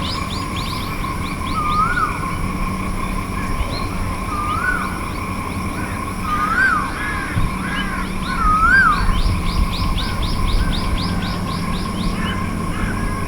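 Asian koel calling: a clear whistled note that rises and then drops, repeated every two to three seconds and coming closer together midway. A fast run of high, thin notes sounds alongside at the start and again near the end.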